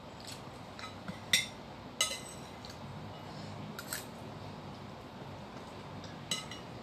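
Metal spoon clinking and scraping against a ceramic bowl while someone eats the last of a meal: a few sharp clinks, the loudest about one and two seconds in, with lighter taps later.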